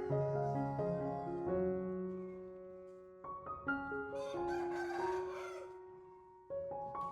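Soft piano background music, slow decaying notes. About four seconds in, a harsh animal call lasting about two seconds cuts through.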